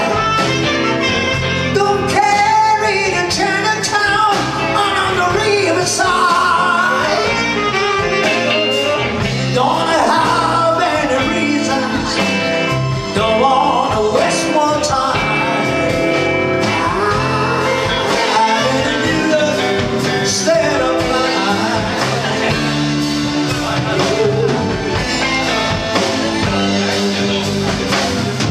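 Live band playing a slow blues-tinged ballad, a woman singing lead over drums, keyboard and electric guitar.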